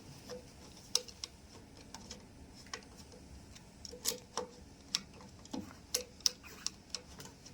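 Irregular light metallic clicks and taps of a hand tool tightening a screw on a machine fitting.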